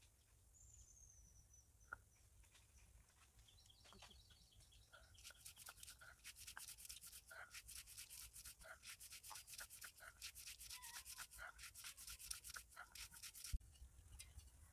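Grated coconut being ground on a shil-nora, a flat grinding stone worked with a hand roller: soft, quick, rhythmic rubbing strokes, several a second, beginning a few seconds in and stopping with a single knock near the end.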